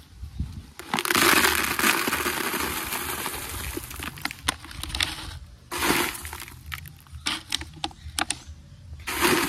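Tepezil pumice gravel poured into black plastic flowerpots: a long rushing pour about a second in, then scattered stones clicking against the plastic and two short pours near the end.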